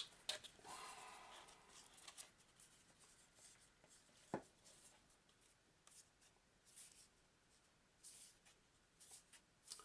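Faint rustling and scraping of a stack of cards being handled while the band around them is worked loose, with a single small tick about four seconds in.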